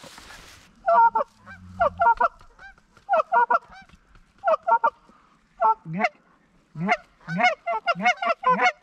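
Goose honks and clucks: short, loud two-note calls, a few spaced out at first, then a quick run of them over the last few seconds.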